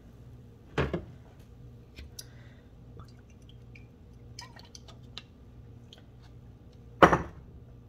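Oil drizzled from a spouted bottle onto a raw seitan sausage on parchment paper: faint drips and small ticks and clicks. Two short knocks or rustles stand out, one about a second in and a louder one near the end.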